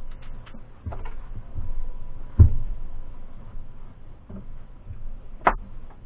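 A few scattered knocks and thumps over a low rumble: a dull thump about two and a half seconds in, and a sharper knock near the end.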